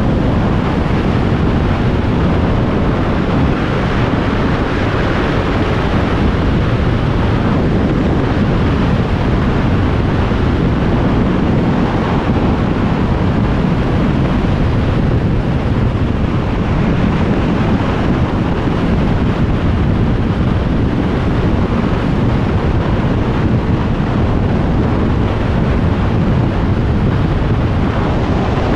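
Heavy wind noise on the microphone of a Kawasaki Z1000SX motorcycle at highway cruising speed, with the bike's engine and tyre noise buried beneath it. It holds steady throughout, with no rise or fall in engine speed.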